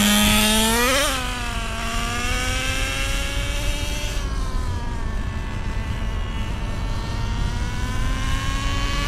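Traxxas Nitro Rustler's TRX 2.5 nitro engine running hard on a fresh glow plug, pulling at top speed without dying out. Its high whine climbs to a peak about a second in, then sinks in pitch and loudness over the next few seconds and climbs again near the end.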